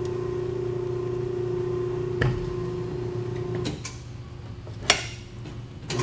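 Electric tyre changer's turntable motor running with a steady hum while the mounting head works the upper bead of an ATV tyre onto the rim. The motor stops about three and a half seconds in. A few sharp knocks follow, the loudest shortly before the end.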